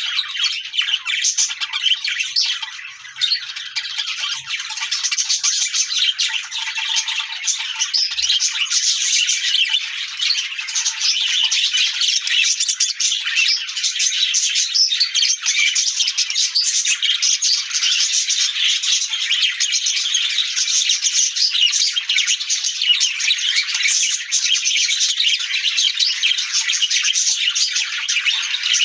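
A group of budgerigars chattering and chirping without a break, many birds overlapping in a dense warble, with a brief lull about three seconds in.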